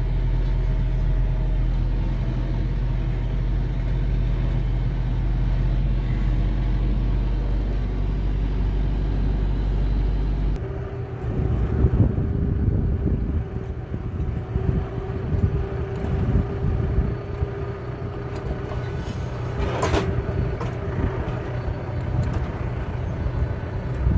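Farm vehicle engine running steadily with a low hum. About ten seconds in, the hum gives way to an uneven rumble with a steady whine over it. A single sharp click comes near the twenty-second mark.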